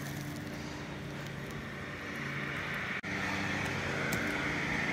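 Steady low mechanical hum with a faint hiss. It drops out briefly about three seconds in and comes back a little louder.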